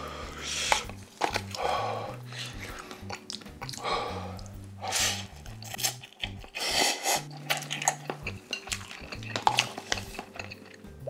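Instant cup noodles being eaten with chopsticks straight from the paper cup: several loud slurps of noodles and light clicks of the chopsticks against the cup, with chewing in between. Soft background music plays underneath.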